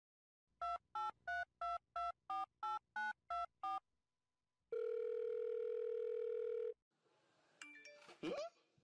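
Telephone keypad tones: about ten quick two-note beeps in an even rhythm, like a phone number being dialled, followed by one steady tone lasting about two seconds. Near the end comes a short sound with a gliding pitch.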